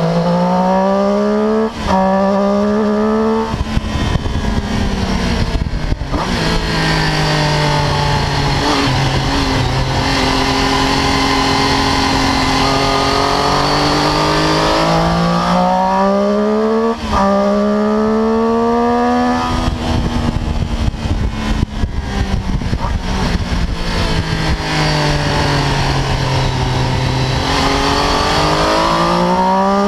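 Triumph Daytona 675's inline three-cylinder engine under hard acceleration through quick upshifts, then dropping in pitch through a run of downshifts, twice over, rising again near the end. Wind rushes over the microphone under the engine note.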